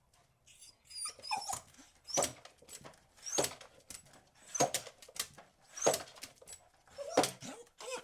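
Beagle barking: a steady series of sharp barks, about one every second and a quarter, with quieter calls and short sliding cries between them, starting about half a second in.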